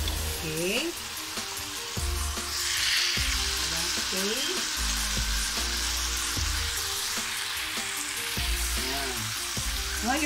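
Soy-marinated rump steaks sizzling steadily as they pan-grill in an oiled flat nonstick pan, the sizzle swelling a few seconds in.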